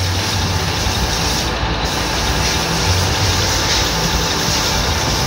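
Metal lathe running and turning a large steel workpiece under flood coolant: a steady, loud machine noise with a low hum that swells now and then.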